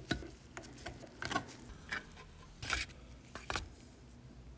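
Metal lid being pried off a can of Rust-Oleum hammered paint with a small flat tool: about half a dozen short metallic clicks and scrapes of lid and tool against the can's rim, the longest scrape near the end.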